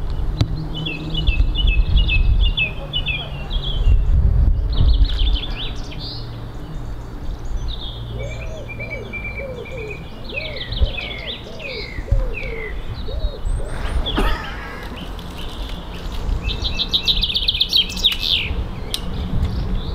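Several songbirds singing and chirping, with repeated trills and short phrases, over a steady low rumble.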